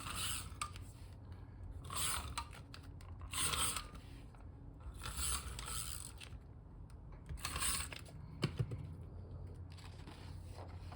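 Tape runner drawn across paper planner pages, a short ratchety zip repeated about five times, with a few small clicks near the end.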